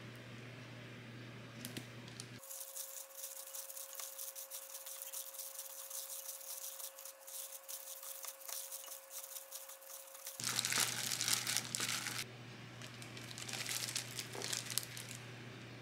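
Disposable plastic glove crinkling and rustling as a gloved hand tosses and squeezes salad in a glass bowl, then lifts it onto a plate. The crinkling is loudest in a burst about ten seconds in.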